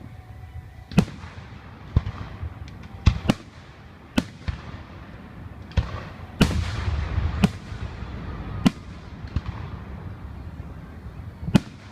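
Aerial fireworks going off, a string of sharp booming bursts about a second apart, with a denser stretch of crackling bangs around the middle.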